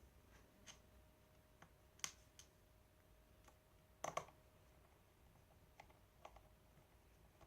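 Faint, scattered small clicks and ticks of a screwdriver and screws on a laptop's plastic back plate as the screws are driven back in. The loudest is a double click about four seconds in.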